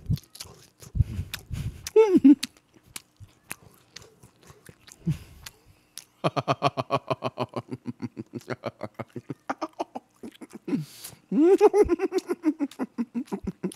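A man chewing a mouthful of grilled spicy pork close to a microphone, with wet mouth clicks. In the second half his voice hums in a long run of even pulses and then a bending "mmm" with his mouth full.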